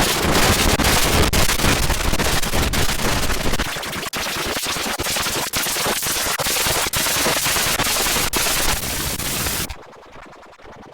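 A loud, harsh wall of distorted noise packed with rapid crackles, which cuts off suddenly near the end.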